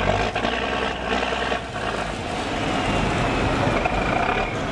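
Steady engine noise from a busy fishing harbour, with distant voices mixed in during the first couple of seconds.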